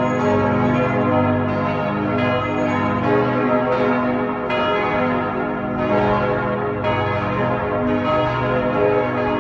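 Several church bells ringing together in a full peal, their strokes falling unevenly and overlapping into a continuous wash of ringing tones.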